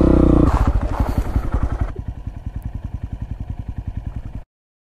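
Honda Grom's single-cylinder engine with a Yoshimura exhaust, dropping from a light rev into an even idle of rapid exhaust pulses about half a second in. The idle grows fainter, then the sound cuts off abruptly near the end.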